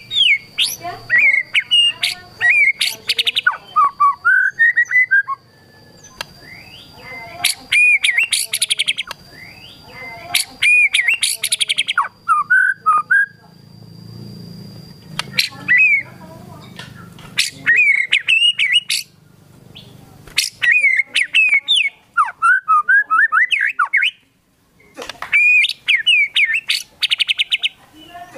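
White-rumped shama singing loudly in bursts: quick whistled notes that glide up and down, mixed with rapid-fire chattering trills, with short pauses between phrases.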